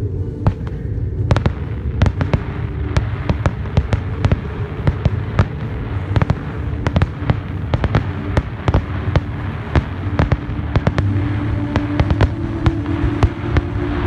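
Aerial fireworks display: shells bursting in quick succession, many sharp bangs several a second over a steady low rumble.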